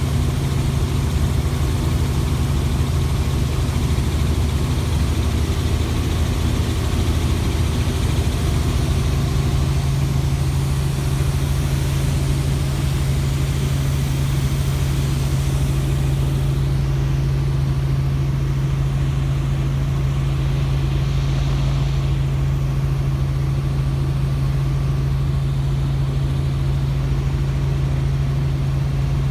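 Helicopter running steadily: a strong, even low hum with a hiss above it that eases off a little past halfway.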